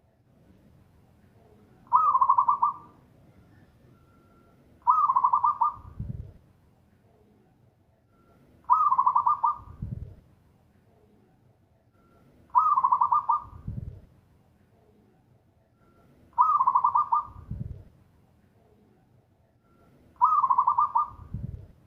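Zebra dove (perkutut) singing its repeated song, six phrases about every four seconds. Each phrase is a fast, bubbly trilled coo ending a second later in a deep low note.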